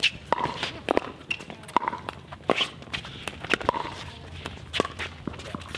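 Pickleball rally: a string of sharp pops, roughly every half second, as paddles strike the hollow plastic ball, with players' footsteps on the hard court in between.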